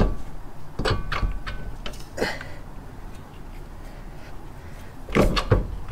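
Scattered metal clicks and knocks from the 2001 Dodge Dakota's loosened front steering knuckle and brake parts being handled, some with a short metallic ring: several in the first couple of seconds and two more near the end.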